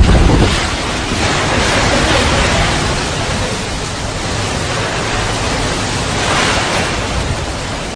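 Strong cyclone wind with heavy rain, a loud steady rushing noise, with gusts buffeting the microphone, heaviest in the first second.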